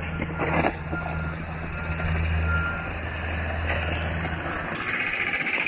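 John Deere 50G compact excavator's diesel engine running with a steady hum, with its warning alarm beeping. The engine hum drops away near the end.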